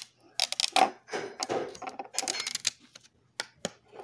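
Thin clear plastic protective film crackling as it is peeled off a small solar panel, with fingers clicking on the panel's plastic case. Near the end come a few separate sharp clicks as the push-button switch on the back of the panel is pressed.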